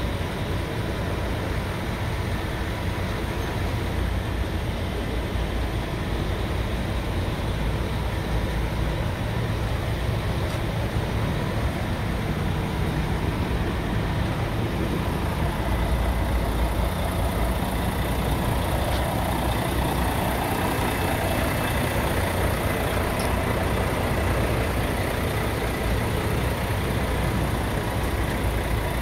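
Scania R 560's 16-litre V8 diesel idling steadily, heard close to the truck's cab and front.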